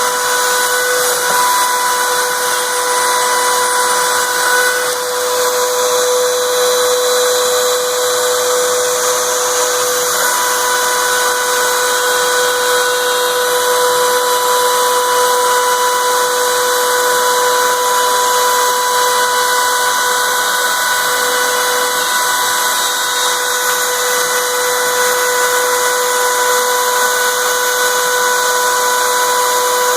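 CNC router spindle running at 30,000 rpm with a steady high whine as a 1/4-inch down-spiral carbide bit mills MDF, with the hiss of a vacuum running alongside.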